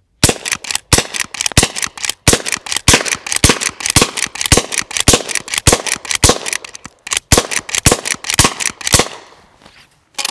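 Henry Garden Gun, a lever-action .22 LR smoothbore, rapid-fired with CCI #12 shotshells: about fifteen sharp shots, roughly two a second, with the lever clacking between them. A pause a little past the middle is a hiccup from short-stroking the lever.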